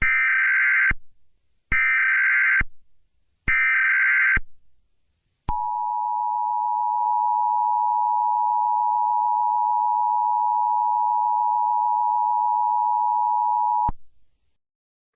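Emergency Alert System SAME header: three identical bursts of digital data screech, each about a second long, encoding the alert's details. About five seconds in, the EAS two-tone attention signal follows, a steady dual-tone buzz held for about eight seconds and then cut off suddenly, signalling that an emergency alert message is about to follow.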